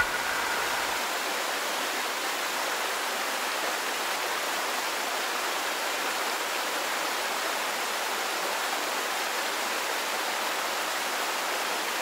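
Steady rush of a waterfall pouring into its rocky pool, running at low flow, an even unbroken hiss of falling water.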